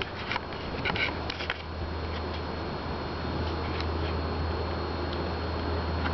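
A few short handling clicks in the first second and a half, over a steady low hum and hiss.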